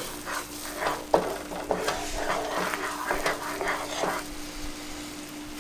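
Wooden spatula stirring and scraping red onions and garlic sautéing in butter in a ceramic-coated frying pan, with the butter sizzling. There is a quick run of strokes for about four seconds, then only the sizzle, over a steady low hum.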